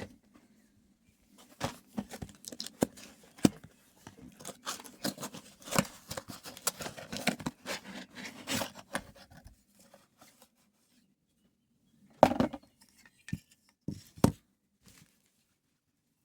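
Hands handling hard objects: a run of clicks, taps and scraping for several seconds over a faint steady hum, then a pause and a few sharp knocks near the end.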